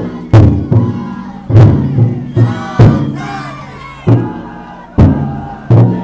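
The big taiko drum inside a Kawachi taikodai drum float being struck about ten times at an uneven pace, each deep boom ringing out and fading. The carriers shout and chant between the beats.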